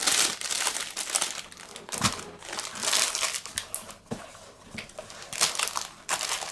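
Plastic packaging crinkling in repeated irregular bursts as it is handled and opened by hand.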